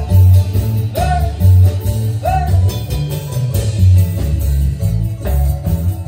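Live band music played over loudspeakers, with a steady, heavy bass beat under the melody.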